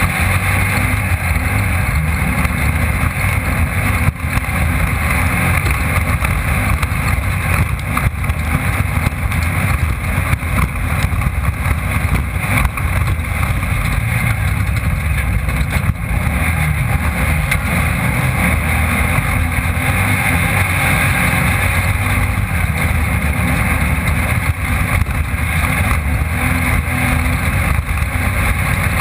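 Off-road race car at speed, heard from its onboard camera: the engine runs hard and steadily under the constant rattle and rush of the car over rough ground.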